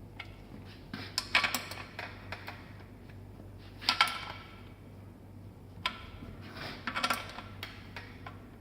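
Metal tool clinking and rattling against the bike's rear axle bolts as they are tightened, in several short bursts of sharp clicks.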